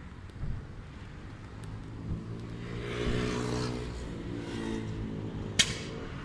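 A car passing by. Its engine and tyre noise swell to a peak about halfway through and then fade, with one sharp click near the end.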